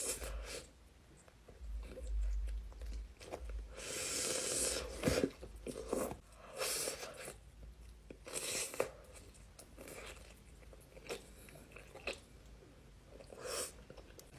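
Close-up eating of pepperoni pizza and a breadstick: a handful of loud crunchy bites, the longest about four seconds in, with quieter wet chewing between them.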